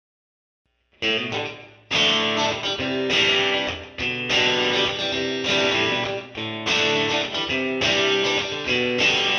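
Background music of strummed guitar chords, starting about a second in.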